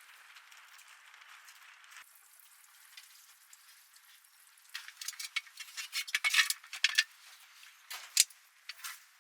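Rustling and clinking as a fabric cover is pulled over and fastened onto a RIB, in a run of crackles and sharp clicks about halfway through and two more sharp clicks near the end.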